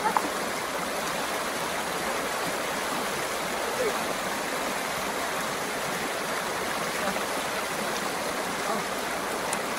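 Shallow river running fast over rocks in small rapids: a steady, even rushing of water.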